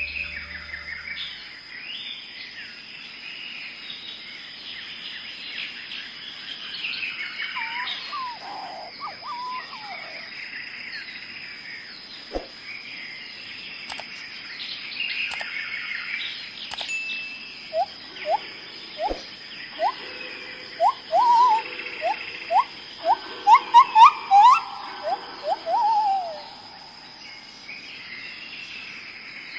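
Forest birdsong: several small birds chirping and twittering, over a steady high-pitched tone. From about two-thirds of the way in, a louder bird calls a series of short rising notes that come faster near the end before stopping.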